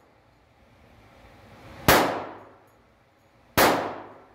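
Two Glock 9 mm pistol shots, under two seconds apart, each ringing out in a long echo off the concrete walls of an indoor shooting range.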